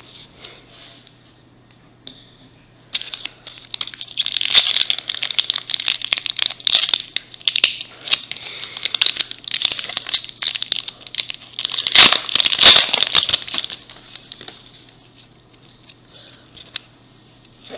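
Plastic wrapper of a Topps Opening Day baseball card pack being torn open and crinkled by hand. The crackling starts about three seconds in, is loudest a little past the middle, and stops a few seconds before the end.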